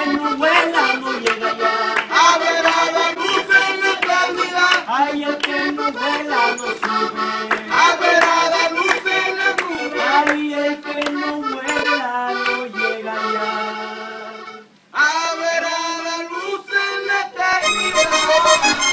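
Diatonic button accordion playing a vallenato tune, with a young man singing and hands clapping along in a sharp, even beat. The music dips away briefly about three-quarters of the way through and comes back abruptly.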